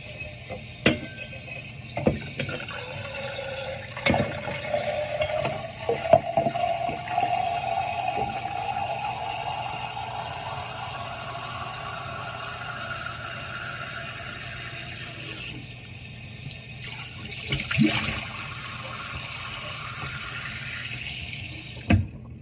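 Sink faucet running into a bottle being rinsed, the pitch of the water rising as the bottle fills, with a few knocks of the bottle against the sink. The tap shuts off suddenly near the end.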